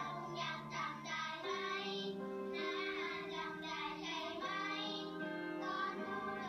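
A group of young children singing a song together over musical accompaniment.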